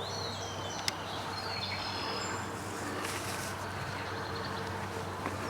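Steady rushing of a flooded creek running high, with a few short whistled bird calls over it and a single sharp click about a second in.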